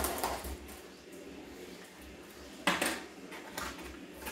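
Cardboard box being cut open with a small utility knife and handled, the blade rasping through packing tape at the start. About two and a half seconds in comes a sharp clack, like the knife being put down on the wooden table, followed by lighter knocks and rustling of cardboard and paper packing.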